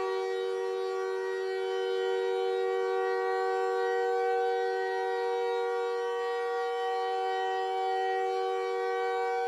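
A sustained electronic chord: several steady pitches held together without any change in pitch or loudness.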